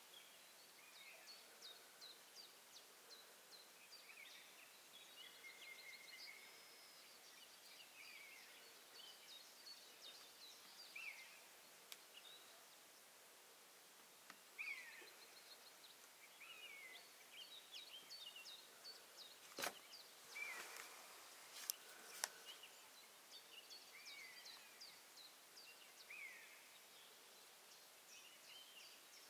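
Faint birdsong from several small birds: many short chirps and down-slurred whistles over a quiet hiss. A few sharp clicks about twenty seconds in.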